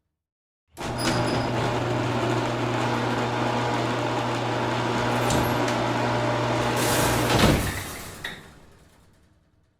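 Motorized garage door opening: a steady, loud running hum as the door travels, ending in a clunk about seven and a half seconds in, followed by a short click and a fade to silence.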